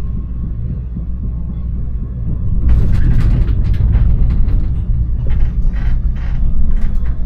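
Siemens Avenio tram running on its rails: a steady low rumble that gets louder about three seconds in, joined by a run of sharp clicks and clacks.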